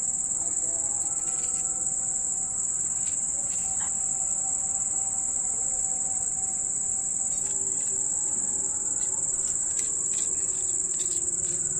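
Crickets chirring in one continuous high-pitched drone. Near the end come a few light clicks of a small spoon against the miniature clay pots as sugar is scraped in.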